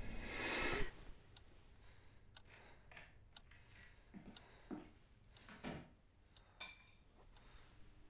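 A rising whoosh swells over the first second and cuts off suddenly. Then come faint scattered rustles and soft clicks of bedding and movement as a person stirs and sits up in bed.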